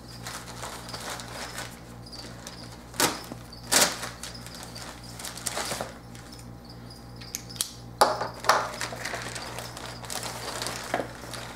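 A plastic courier mailer bag being cut open and handled: crinkling and rustling of the plastic, with several sharper crackles as it is pulled open.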